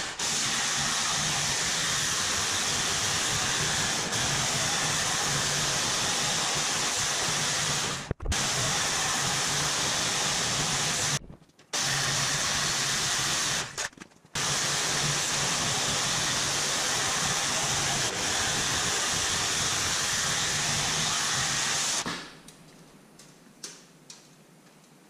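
DeWalt jigsaw cutting 1/8-inch aluminium sheet, running steadily with three short breaks, then stopping about 22 seconds in. After that the sound is much quieter.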